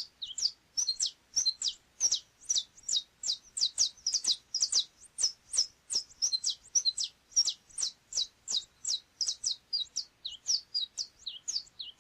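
Canário chapinha (saffron finch) singing a long, unbroken song of sharp, rapid notes, each sweeping steeply down in pitch, about four notes a second.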